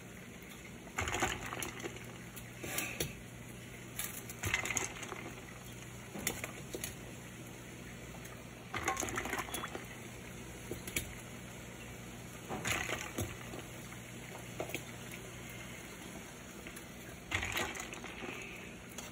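Plastic egg-cooker pods set one at a time with metal tongs into a glass bowl of ice water: ice cubes clatter and crunch against each other and the glass as each pod goes in, about eight separate times.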